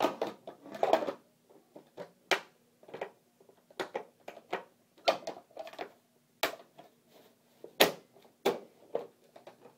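Irregular plastic clicks and knocks as the SodaStream Penguin's rear cover is handled and fitted back over the CO2 cylinder, the sharpest knock about eight seconds in.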